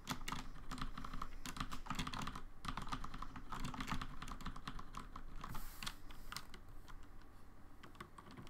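Typing on a computer keyboard: a fast, uneven run of keystroke clicks that starts suddenly and thins out after about five seconds.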